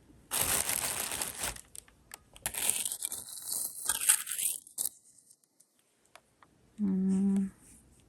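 Plastic bag crinkling and rustling in short bursts as jewelry is handled, with a brief hummed "mm" near the end.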